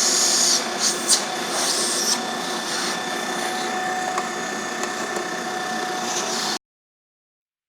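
Electric coffee grinder running with a steady motor whine and crackling as it grinds beans; the sound cuts off abruptly near the end.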